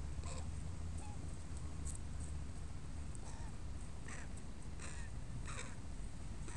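Young crows calling with short caws, roughly one a second, over a low steady rumble.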